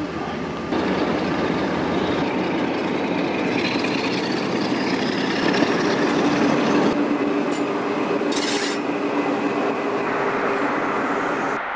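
High Speed Train (Class 43 power car) running with its diesel engine working, along with wheel and rail noise as the train moves past.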